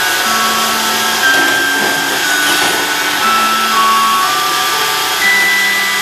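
iRobot Roomba robot vacuum running with a steady whirring hum, with a slow melody of held notes laid over it.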